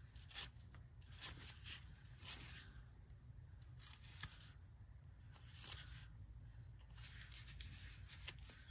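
Faint, irregular scraping and rubbing strokes as the threads of a gas pipe fitting are cleaned by hand to clear out debris that could clog the gas valve.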